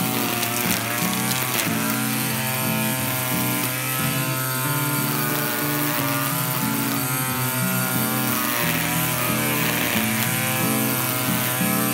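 Makita DUR181Z 18-volt cordless strimmer running and cutting grass along a lawn edge, with background music playing over it.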